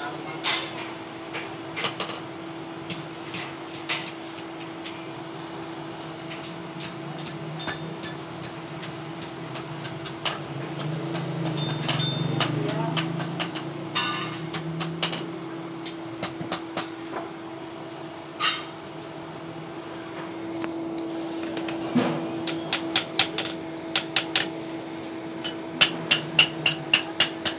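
Hand hammer striking a steel strip on a small anvil, each blow ringing metallically. Scattered strikes at first, then a fast steady run of about three blows a second near the end, over a steady hum.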